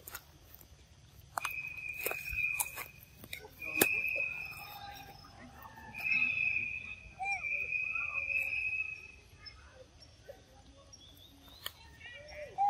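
A macaque biting into a mango, with sharp clicks in the first few seconds. Over it a steady high-pitched tone sounds three times, and a few short squeaks come near the end.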